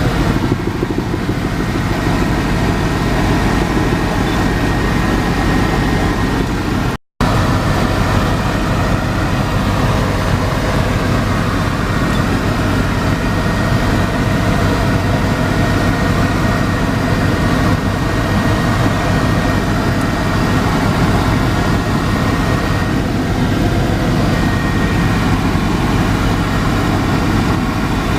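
Helicopter cabin noise: the engine and rotor run steadily with a faint high whine. The sound cuts out for an instant about seven seconds in.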